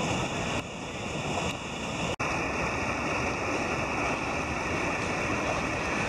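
Mountain torrent rushing, whitewater pouring over boulders in a steady loud wash. There is a brief drop-out just over two seconds in.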